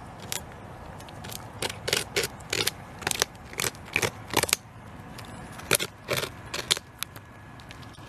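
Beaver gnawing the bark of a tree trunk: irregular, sharp scraping bites of its teeth on wood, coming in quick runs with a short pause halfway through.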